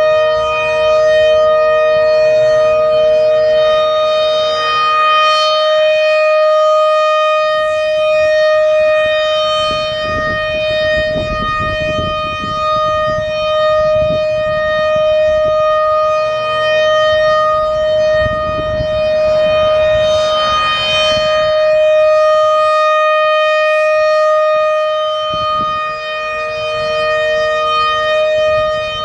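American Signal RM-130 rotating outdoor warning siren sounding a steady alert tone at full pitch. It gets brighter and louder twice, about 15 seconds apart, as the rotating horn sweeps past.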